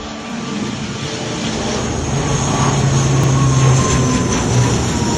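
Wings Air ATR 72 turboprop flying low nearby, its engine drone growing louder, with a high whine that slowly drops in pitch.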